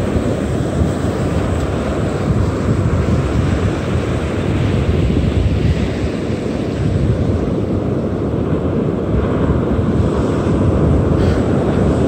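Steady wind noise buffeting the microphone over the wash of surf on the beach.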